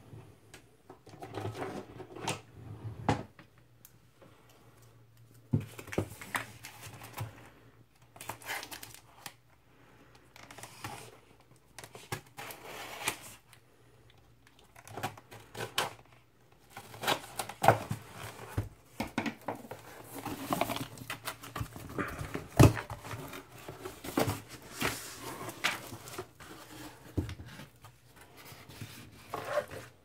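Utility knife cutting open a cardboard LP mailer, in irregular bursts of scraping and clicks, followed by the cardboard flaps being folded open and the record handled.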